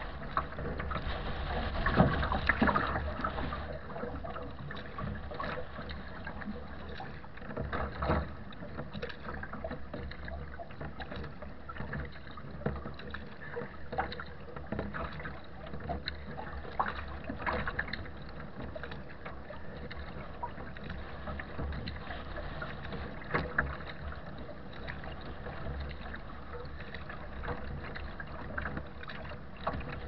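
Wooden Nordkapp HM sea kayak moving through choppy water in a strong gale: water slaps and splashes against the hull at irregular moments, loudest about two seconds in, over a steady rumble of wind buffeting the microphone.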